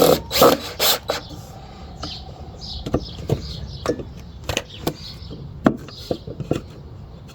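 Handling of wooden boards and tools during assembly of a wooden box: a few loud scraping knocks in the first second, then scattered sharp knocks and clicks. Birds chirp faintly in the background.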